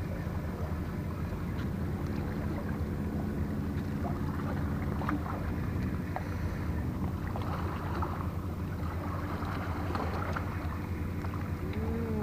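A boat engine running at a steady low hum, with a few faint ticks over it.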